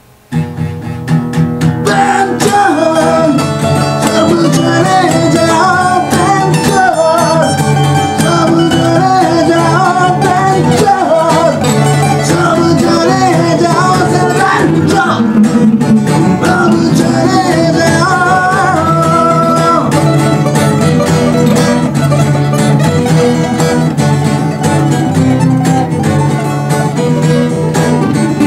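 A band's song with guitar, starting abruptly just after the beginning, with a bending melody line over the first twenty seconds or so.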